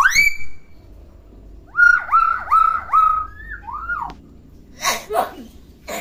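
Hill myna whistling: a rising whistle at the start, then a quick run of four whistled notes about two seconds in and a single falling note, followed by two harsh, noisy calls near the end.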